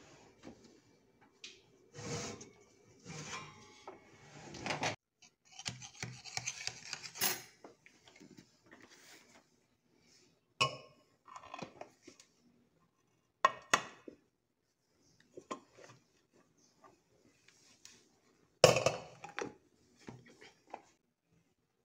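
Aluminium ring cake pan and metal utensils clinking, scraping and knocking as the baked cake is loosened and turned out of the pan, with a few sharp knocks, the loudest about three seconds before the end.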